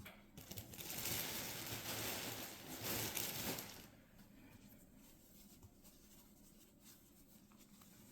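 Stuffing being pulled apart by hand: a soft tearing rustle lasting about three and a half seconds, then only faint handling rustles.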